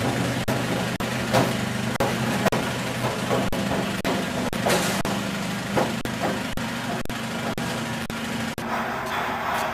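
Pepper crop chopper trolley running: a steady motor hum with sharp clicks about twice a second and a few louder rushing bursts.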